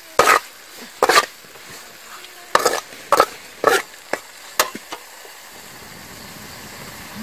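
Metal spatula scraping and tossing chilies, lemongrass and lime leaves in a steel wok, about six quick scrapes in the first five seconds, over a steady sizzle of frying. After the last stroke only the sizzle goes on.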